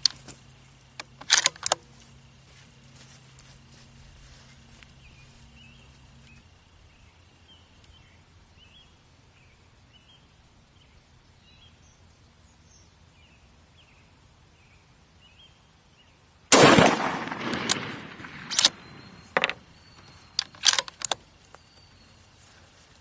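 A single shot from a bolt-action rifle in 6.5 Creedmoor, loud and sudden with a short trailing echo, about three-quarters of the way through. Several sharp metallic clicks of the bolt being cycled follow it; before the shot there are a couple of handling clicks and faint bird chirps.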